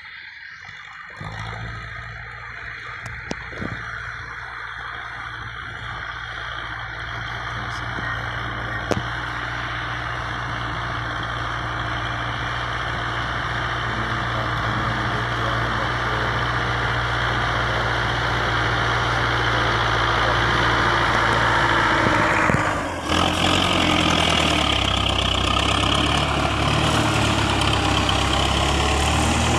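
Farm tractor's diesel engine running steadily while pulling a spring-tine cultivator through the soil, growing louder as the tractor approaches. About two-thirds through the sound changes abruptly and is heard from very close to the engine.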